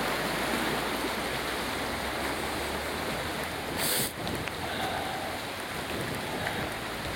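River water rushing steadily, with a brief sharp hiss about halfway through.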